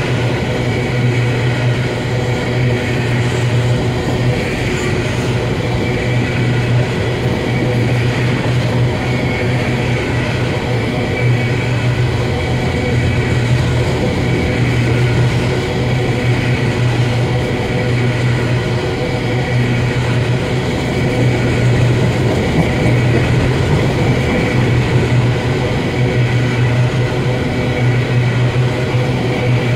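Empty covered hopper cars of a long freight train rolling past close by: a loud, steady rumble of steel wheels on the rails.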